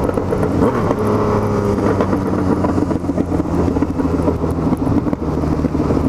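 Yamaha MT-09's three-cylinder engine running steadily under way, with small rises and falls in pitch.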